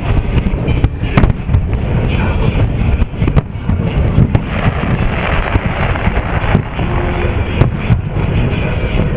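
Aerial firework shells bursting in close succession: repeated sharp bangs and crackles over a continuous low rumble of booms.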